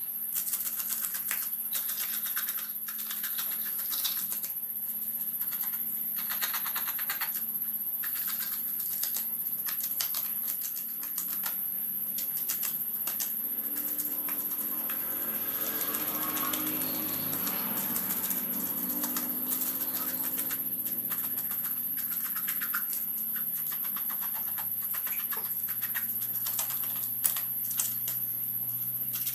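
Knife scraping the scales off a snakehead (murrel) fish in quick repeated strokes, a dense run of scratchy clicks.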